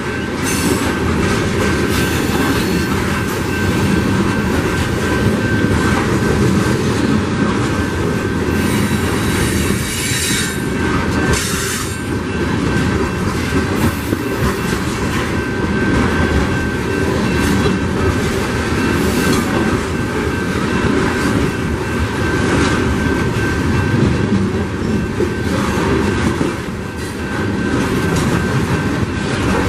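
Coal train's open-top cars rolling steadily past: a continuous rumble and rattle of steel wheels on the rails, with high wheel squeal rising now and then.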